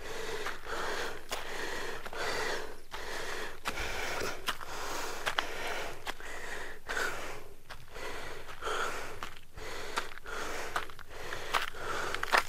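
A man's heavy, quick breathing close to the microphone, panting in a steady rhythm: he is out of breath from the exertion of the trek. A few light clicks sound over it.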